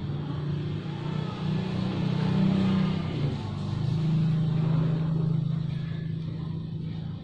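An engine running with a steady low hum that swells louder twice and eases off again.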